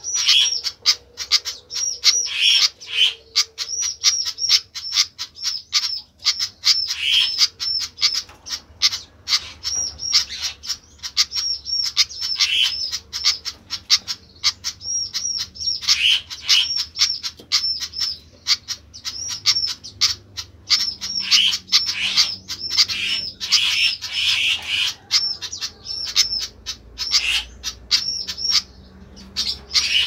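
A caged Malaysian pied fantail calling noisily: short, high chirping notes repeated in quick succession, almost without pause, with many sharp clicks in between.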